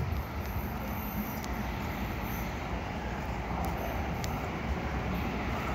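Steady background noise of an outdoor railway station with no train at the platform: a low, even city rumble, with a few faint ticks.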